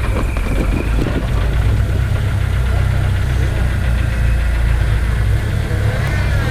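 Off-road vehicle engine running steadily at low revs with a low, even rumble, as it crawls or idles on a rocky trail.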